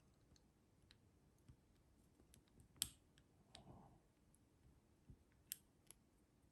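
A handful of faint, sharp clicks from a lock pick working the pin stack inside a Master Lock Pro Series padlock, the loudest about three seconds in.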